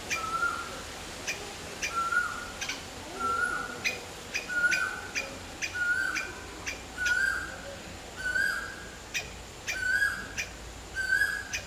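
A bird calling over and over at a steady pace of about once a second, each call a short sharp high note followed by a brief flat whistle.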